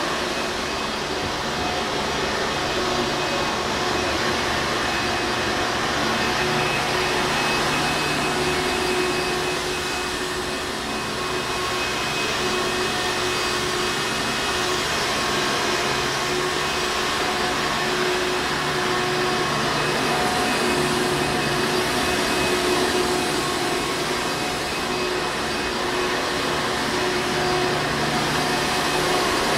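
Hoover Encore Supreme upright vacuum cleaner running continuously, a steady whirring motor drone with a constant pitch.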